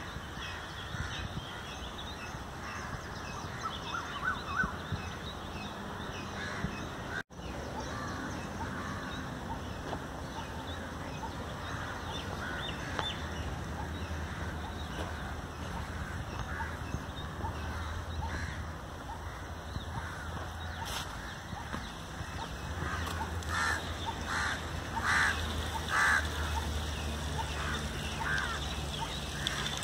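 Crows cawing, with a run of loud repeated calls near the end, over a steady low rumble of road traffic. The sound drops out for an instant about seven seconds in.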